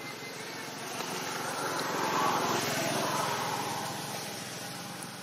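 A motor vehicle's engine passing by, growing louder to a peak about two seconds in and then slowly fading.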